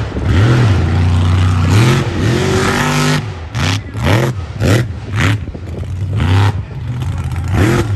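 Mega truck's engine revving hard: held high and climbing for the first few seconds, then blipped in a string of quick, sharp rev rises and falls.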